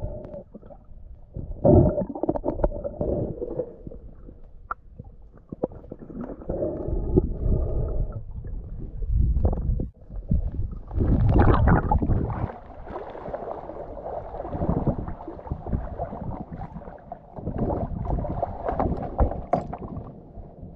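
Muffled underwater sound of water moving and gurgling around a submerged camera, in irregular surges with scattered knocks.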